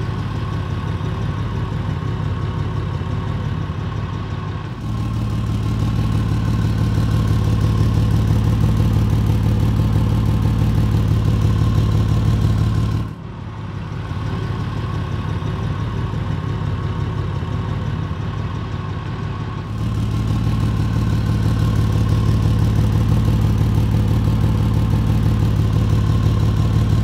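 2004 Ford Ranger's engine and exhaust running steadily, with the leak just ahead of the flex pipe under a temporary patch. It sounds a lot better, though not perfect: the owner suspects more exhaust leaks further down. The sound gets louder about five seconds in and again near the end, with a short drop in the middle.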